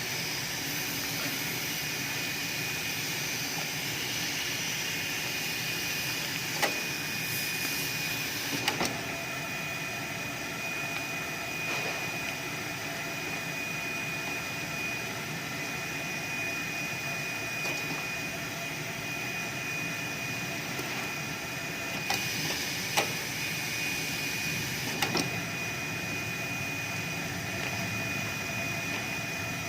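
A sealer machine for raincoat seams running steadily: a constant noisy hum with a high, steady whine. A few sharp clicks come through now and then.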